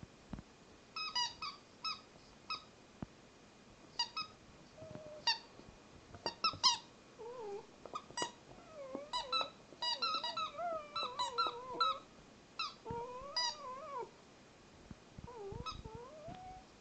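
A dog's rubber squeaky toy squeaking in short, sharp bursts, mixed with the dog's own high whining squeals that slide up and down in pitch. The squeals are densest in the middle and thin out near the end.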